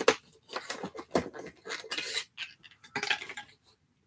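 Shopkins Happy Places toy packaging being handled and opened: small hard plastic pieces inside clatter and rattle in quick irregular clicks, which stop about three seconds in.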